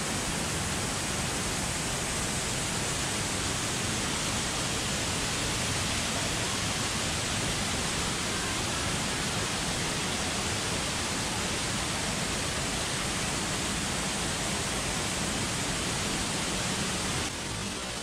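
Waterfall pouring down a stalactite curtain close by: a steady, dense rush of falling water and spray, a little quieter near the end.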